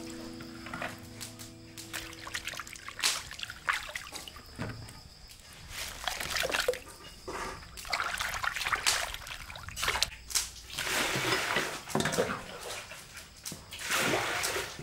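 Hands swishing and rubbing vegetables in a metal basin of water: irregular splashing and sloshing, with water trickling off the stalks.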